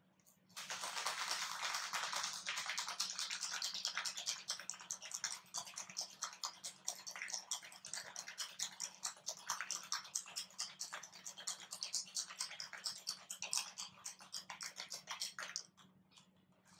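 Ice rattling hard inside a metal cocktail shaker, shaken in a fast, steady rattle for about fifteen seconds and stopping just before the end.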